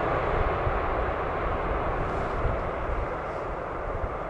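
Airbus A340-300's four CFM56 turbofan engines at takeoff thrust, a steady jet roar with a deep rumble that slowly fades as the aircraft climbs away.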